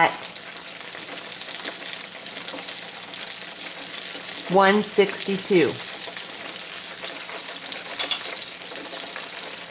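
Hot oil sizzling steadily in an electric turkey fryer, with the fried turkey held in its basket just above the oil. A short click comes about eight seconds in.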